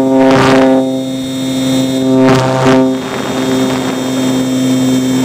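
Electric motor and propeller of an Easy Glider Pro model glider humming steadily at a constant pitch, picked up by the camera on board, with two brief rushes of wind noise, about half a second and two and a half seconds in.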